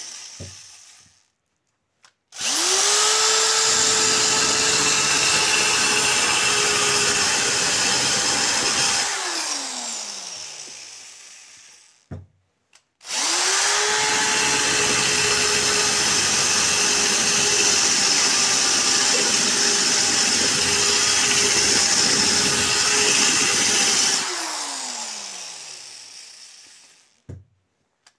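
Corded drill-driver spinning a diamond-coated tube (core) bit into a mirror, run twice at high speed. Each run spins up quickly to a steady whine, the first lasting about six seconds and the second about eleven, then winds down in a falling whine when the trigger is released.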